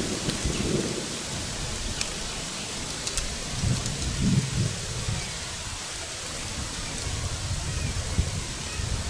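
Wind rumbling in uneven gusts against the camera microphone over a steady hiss, with a few faint clicks.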